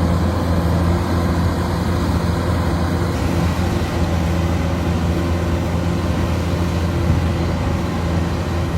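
Kubota DC-105 combine harvester's diesel engine running steadily, a continuous low drone.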